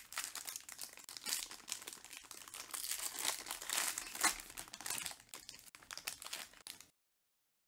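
Foil wrapper of a Panini Origins basketball card pack crinkling and crackling as it is torn open and pulled apart by hand. There is a sharper crackle about four seconds in, and the sound cuts off abruptly near the end.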